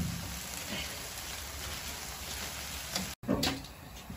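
Octopus and vegetable stir-fry (nakji-bokkeum) sizzling steadily in a frying pan on a gas stove as seasoning sauce is poured in. The sizzle cuts off abruptly about three seconds in, followed by a few light clicks and knocks.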